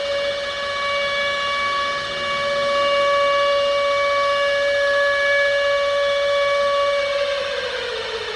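Civil defense siren sounding an attack warning: a single wailing tone that holds steady at full pitch, then begins to wind down and fall about seven seconds in.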